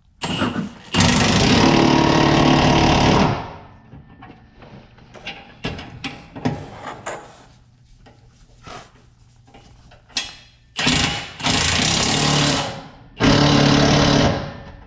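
Electric arc welder laying three short welds on a steel truck frame bracket, each a steady crackling hiss. The first runs about two and a half seconds, starting about a second in; two shorter ones come near the end, with scattered faint clicks between.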